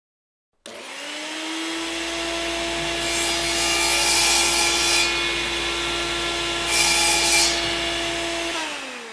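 Title-sequence sound effect: a steady pitched whine that comes in suddenly, rises slightly, holds, then drops in pitch and fades near the end. Two hissing swooshes come over it, about three and seven seconds in.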